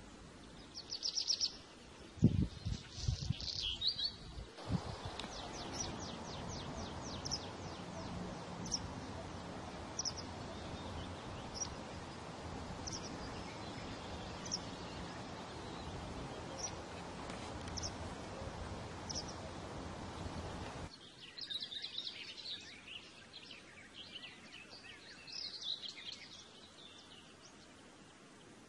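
Birds calling outdoors: a short high chirp repeats about every second and a half over a steady background hiss, and then more varied birdsong follows. A few low thumps come in the first few seconds.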